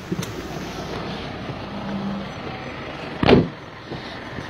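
Phone handling noise as the phone rubs against a jacket while being moved, over a steady vehicle rumble, with one heavy thump about three seconds in.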